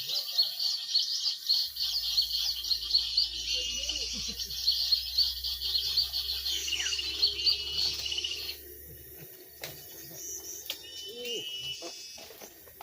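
Many small birds chirping rapidly in a dense, high-pitched chorus that cuts off suddenly about two-thirds of the way through. After that only a few scattered short calls remain.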